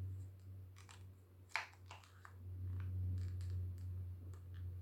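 Faint scattered clicks and light scratching from small objects being handled, over a steady low hum; one click about a second and a half in stands out.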